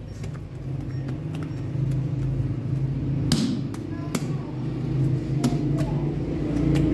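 Steady low machine hum in a bakery, with scattered light knocks and a sharper thud about three seconds in as dough is pulled from the bowl, handled and laid on the peel.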